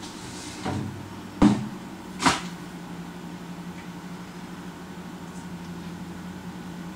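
Two sharp knocks about a second apart as a measuring cup is fetched from a kitchen cupboard, over a steady low hum.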